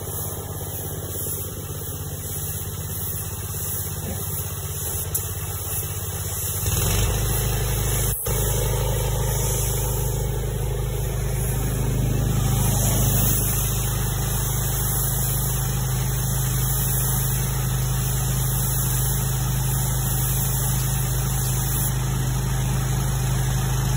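A steady engine-like machine hum with a hiss over it. It gets louder and deeper about seven seconds in, then runs on evenly, with one short click a little after that.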